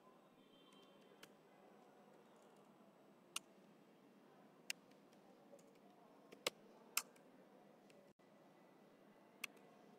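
A few isolated computer keyboard key presses, about six sharp clicks spread out over near-silent room hiss.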